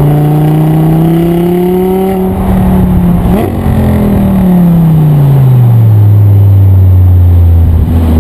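Audi R8 V10 Spyder's V10 engine through an Eisenmann stainless-steel valved exhaust, climbing in pitch for about three seconds, then falling back and settling into a steady, lower drone.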